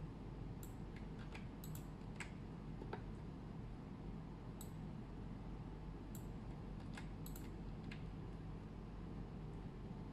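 Computer mouse and keyboard clicks, about a dozen scattered sharp clicks with some in quick pairs, over a steady low hum.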